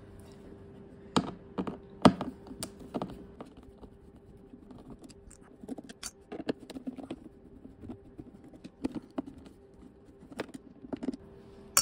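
Irregular clicks, taps and light scrapes of a screwdriver and small bolts being worked out of a hard motorcycle saddlebag, with a sharp click right at the end. A faint steady hum runs underneath.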